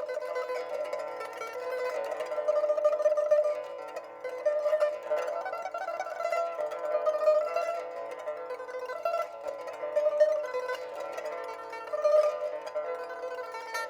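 Background music: a melody played on a plucked string instrument, with quickly changing notes.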